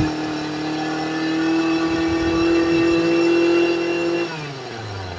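Maruyama MBS261E brush cutter's small two-stroke engine held at high revs for about four seconds, then throttle released so it drops back to idle. The seller reports an abnormal noise from this engine.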